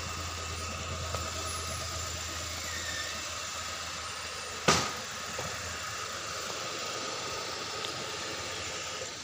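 Small Hyundai hatchback's engine running at low speed while the car is manoeuvred, a steady low hum that fades somewhat about halfway through. One sharp knock cuts in around the middle and is the loudest sound.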